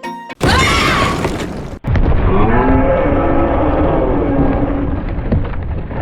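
A loud, low, bellowing roar sound effect in two parts: a short burst that cuts off suddenly at about two seconds, then a longer rumbling bellow whose pitch wavers and which eases off near the end.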